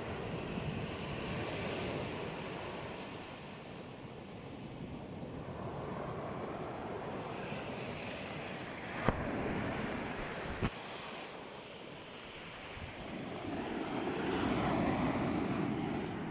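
Black Sea surf washing onto the shore, the noise rising and falling in slow surges and loudest near the end. Two short sharp clicks, about nine and ten and a half seconds in.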